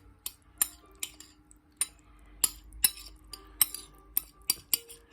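Eating utensils clicking and clinking against a bowl as noodles and cucumber are picked up, in a string of sharp, irregular clinks about two or three a second.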